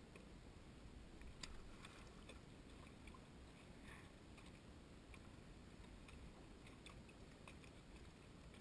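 Near silence: a faint low rumble with a few soft, irregular clicks.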